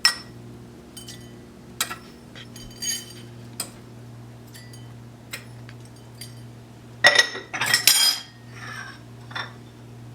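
Scattered clinks and knocks of cutlery and dishes, with a louder burst of clattering about seven to eight seconds in, over a steady low hum.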